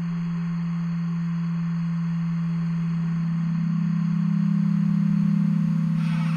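Electroacoustic music: a loud, sustained low drone tone. About three seconds in, a second, slightly higher tone joins it, and the two beat against each other in a slow pulsing. A burst of hissing noise comes in near the end.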